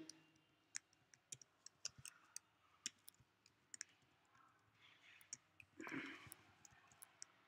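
Scattered faint computer-keyboard keystrokes as code is typed, with a brief faint vocal sound about six seconds in.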